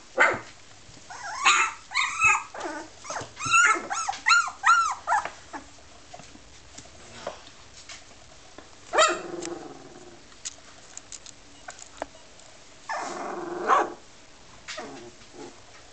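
17-day-old Labrador puppies yipping and barking in short, high-pitched bursts. There is a quick run of them over the first five seconds, a single yip about nine seconds in, and a longer, rougher one about thirteen seconds in.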